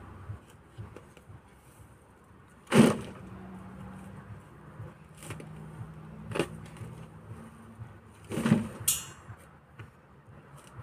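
Shovel digging and scraping in soil, with a sharp hit about three seconds in and two more thuds near six and a half and eight and a half seconds. A faint steady low hum runs underneath for several seconds in the middle.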